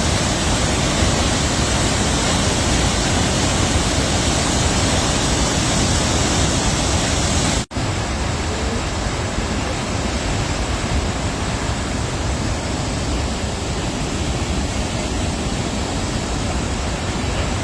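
Sunwapta Falls' glacial meltwater pouring down in heavy, swift flow: a steady, loud rush of water. About 7.5 seconds in, it drops out for an instant, then carries on slightly softer and less hissy.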